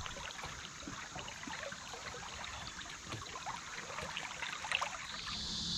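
Shallow river current trickling and lapping around a kayak, with small splashes as a fish is let go by hand. Near the end, insects start a steady high trill.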